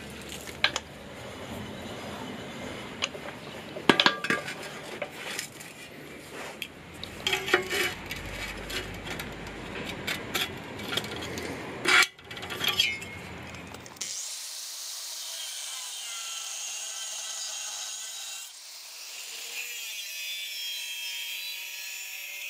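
Clinks and knocks of rusty steel being handled at a vise, then, from about two-thirds of the way through, an angle grinder cutting through the wall of a rusty steel square tube: a steady whine with a grinding hiss, easing briefly before it bites again.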